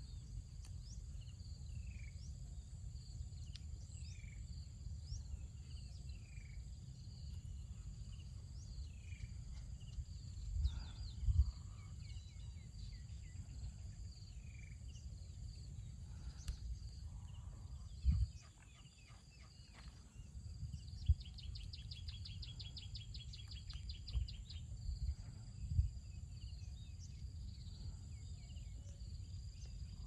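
Outdoor ambience: a steady high insect drone over a low rumble, with repeated short bird chirps in the first half and a fast trill about three-quarters of the way through. A few dull thumps stand out.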